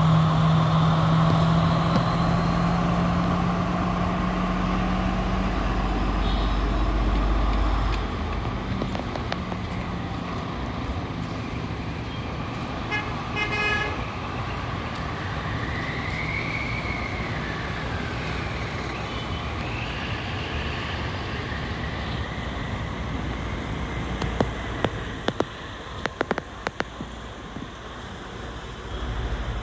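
Diesel multiple unit train's engine running in a steady drone with heavy rumble, which drops away sharply about eight seconds in, leaving a quieter steady background. A short pulsing tone comes around the middle, followed by a few high rising-and-falling whistle-like notes and some sharp clicks near the end.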